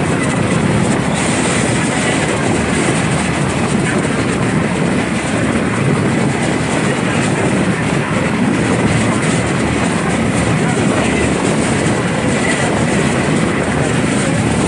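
Tour boat's engine running steadily and loudly under way, with a continuous rumble of the motor and water.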